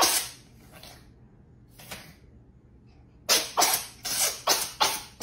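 A domestic cat in a coughing fit: a sharp cough at the start and another about two seconds in, then from about three seconds a rapid run of harsh, hacking coughs, about three a second.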